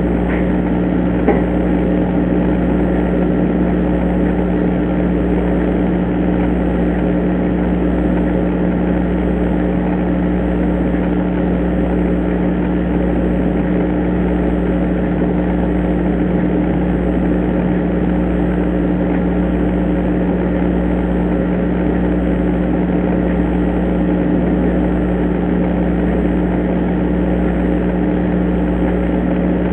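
Steady electrical hum and hiss picked up by a Foscam indoor IP camera's built-in microphone, with a single sharp tick about a second in.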